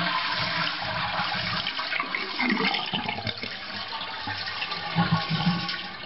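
Toilet flushing with its water supply shut off: water rushes out of the tank into the bowl and the tank drains without refilling. The rush tapers off near the end.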